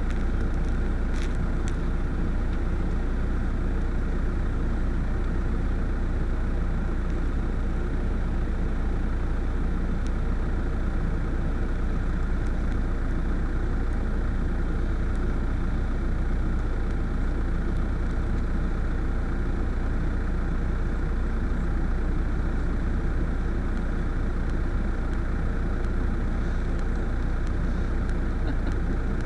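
A steady, unchanging low rumble like an idling engine, with no separate sounds standing out.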